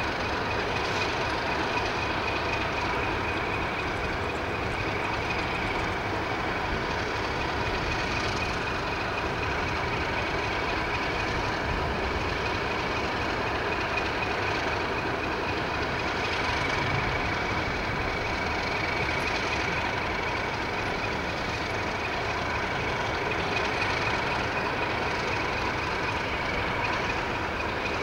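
British Rail main-line diesel locomotive idling while standing, a steady engine drone with a constant high whine over it.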